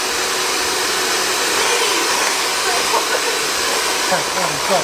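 Steady, loud rushing noise of air from a running blower motor, with a voice sounding faintly near the end.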